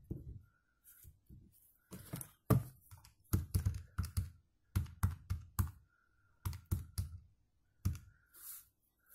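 Keys of a Casio fx-100MS scientific calculator being pressed to enter a calculation: a quick, uneven series of sharp plastic clicks and taps, each with a soft thud against the table, over about six seconds.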